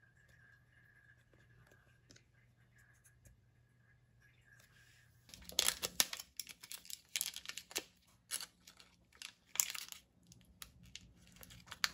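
Foil wrapper of a butter stick crinkling and tearing as it is peeled open, in a run of sharp rustles that starts about five seconds in after a stretch of quiet room tone.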